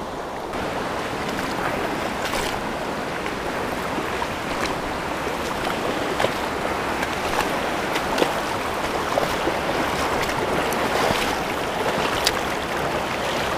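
Shallow river running fast over rocks: a steady rush of water, with a few sharp clicks scattered through it.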